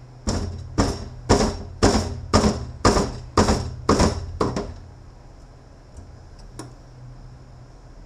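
Hammer blows on a transfer case part in the shop, nine strikes at about two a second, each with a short ring. A single light tap follows a couple of seconds later.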